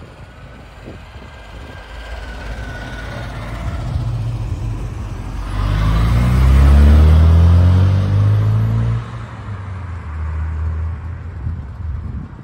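A classic car's engine passing close by. It builds up, is loudest in the middle with its note falling, then drops away quickly and runs on more quietly.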